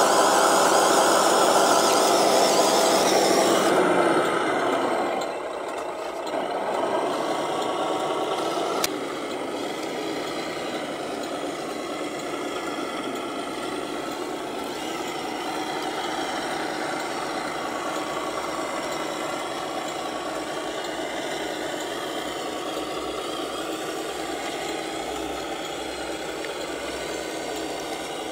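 Radio-controlled Scania model truck running as it hauls a loaded lowboy trailer, a steady mechanical running sound. It drops in level and changes character about four seconds in, with a single click near nine seconds, then runs on more quietly.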